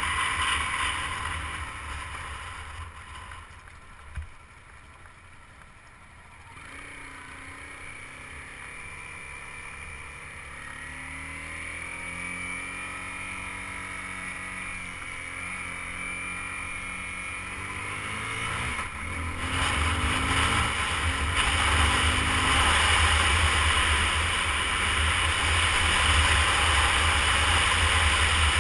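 Honda CBR250R single-cylinder motorcycle engine on the move, with heavy wind buffeting the microphone. The wind dies down a few seconds in as the bike slows, the engine is then heard pulling away and rising in pitch through the gears, and loud wind noise returns near the end as speed builds.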